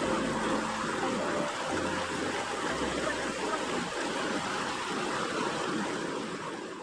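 Rushing mountain river: a steady hiss of flowing water, fading out near the end.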